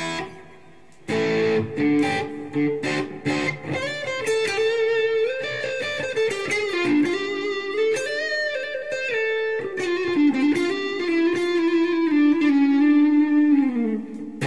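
Fender Deluxe HSS Stratocaster electric guitar played through a Peavey Bandit 112 amp. A few choppy strummed chords come about a second in, then a single-note lead line with bends and vibrato, which ends on a note that slides down near the end.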